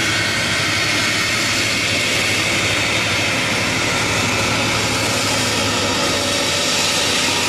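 Beriev Be-200 amphibian's twin turbofan jet engines running at a steady, loud level as the aircraft speeds across the water surface.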